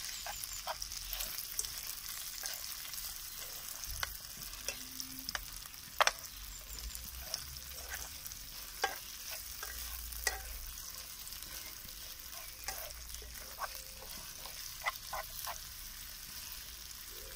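Chicken, pork and onion pieces sizzling steadily in hot oil in a nonstick pan while being stir-fried, with a spatula clicking and scraping against the pan now and then.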